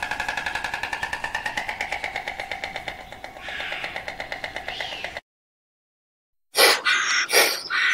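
An animal call made of rapid pulses, about a dozen a second, with a steady pitch; it ends about five seconds in. After a short gap come four or five loud, short calls.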